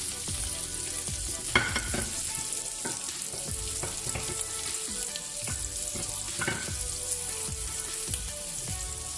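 Bacon and prawns sizzling in hot oil in a frying pan with onion, stirred with a spoon that scrapes and knocks against the pan every second or so, one sharper knock about one and a half seconds in.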